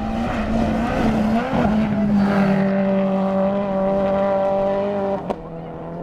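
Subaru Impreza WRX STI rally car's turbocharged flat-four engine revving hard, its pitch rising and dipping for the first two seconds, then held at a steady high note for about three seconds. About five seconds in it cuts off sharply with a click, giving way to a fainter, lower engine note.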